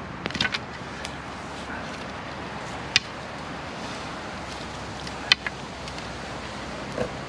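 Wooden sticks knocking together as they are set down on the forest floor, then two sharp single pops a couple of seconds apart from the wood campfire, over a steady background rush.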